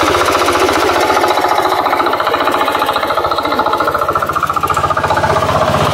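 A hand tractor's engine running steadily under load as it plows a flooded rice paddy, with a rapid, even beat.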